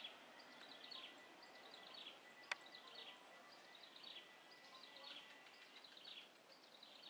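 Faint bird chirps, short high calls repeating about every half second, over a thin steady high tone, with one sharp click about two and a half seconds in. No jet engine noise is heard.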